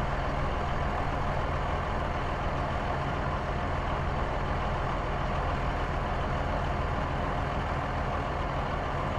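Heavy truck engine running steadily, an even low engine sound with no change in pitch or level, used as the sound effect for a fuel tanker truck.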